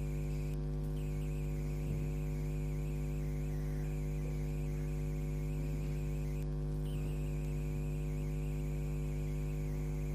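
Steady electrical mains hum with a buzz of overtones and a faint hiss underneath; the hiss cuts out briefly twice.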